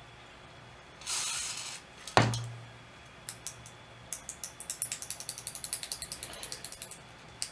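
Short hiss from an aerosol spray can, a single sharp knock, then a fast run of small mechanical clicks, about eight a second, lasting some three seconds.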